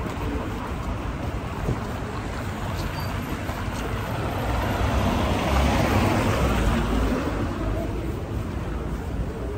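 Road traffic on a wide city avenue: a steady wash of car engines and tyre noise, swelling as a car passes close by about six seconds in.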